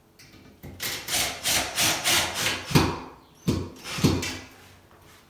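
Quick back-and-forth scraping strokes, about four a second, as a shower enclosure's frame is worked at its base during fitting, followed by two louder knocks.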